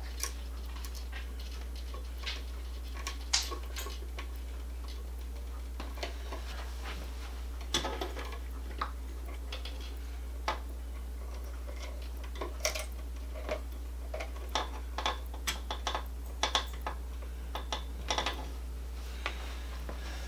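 Irregular small clicks and light metallic taps of hand tools and wires being worked at a light-switch wall box, over a steady low hum.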